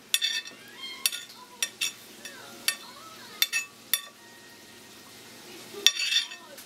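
Fingers pressing and rolling a chicken piece in crumbly dry batter mix on a plate: scattered short crackly scrapes and light taps of fingertips against the plate, with a bunch of them near the end.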